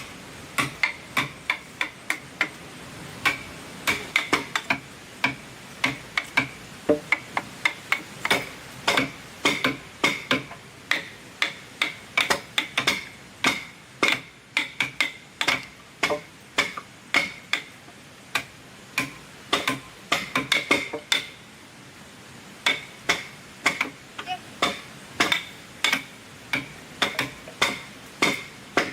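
Hammering: a long run of sharp, irregular knocks, two to four a second, each with a brief ringing tone, broken by a couple of short pauses.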